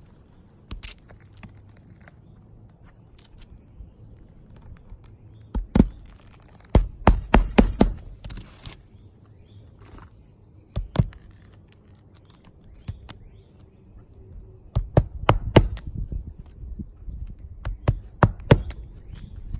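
Hammer driving roofing nails through asphalt shingles: runs of quick, sharp blows with pauses between, the longest run about a third of the way in and another about three-quarters in.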